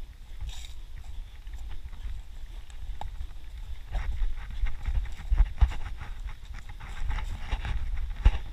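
Running footsteps on a dirt forest trail, heard as irregular thuds over a steady low rumble of wind and movement on a body-carried action camera's microphone.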